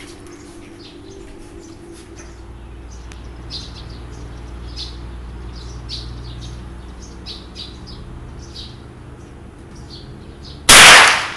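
A single rifle shot near the end, very loud and sudden, from a scoped rifle on a bipod, dying away with a short ring. Before it, small birds chirp in short, scattered calls.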